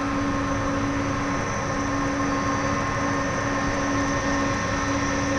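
Jet engines of a taxiing Airbus A300-600R, a steady whine of several held tones over a rumbling roar.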